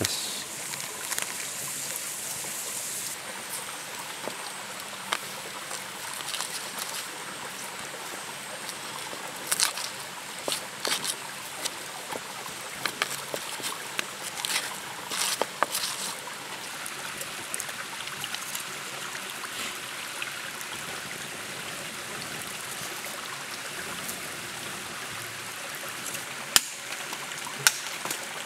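A stream running steadily, with a run of knocks and clicks from a stone crushing spices in a clay mortar in the middle of the stretch. Two sharp knocks near the end.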